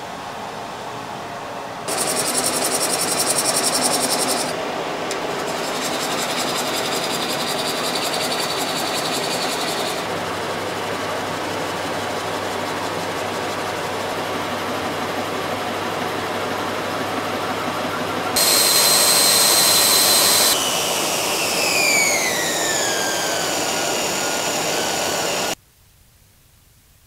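Wood lathe spinning a green elm bowl while a bowl gouge cuts it, over the steady rush of a dust extractor, with the sound changing abruptly several times. Near the end a whine falls steadily in pitch as the lathe slows, then the sound cuts off to faint room tone.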